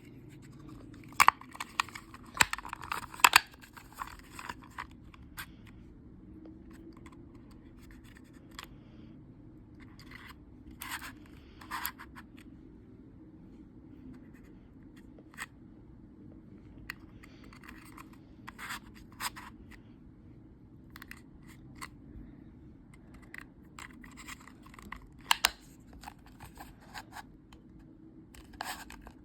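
Toy packaging being handled and opened by hand: scattered scratching, tearing and crinkling noises with short clicks, busiest near the start and in a few clusters later on.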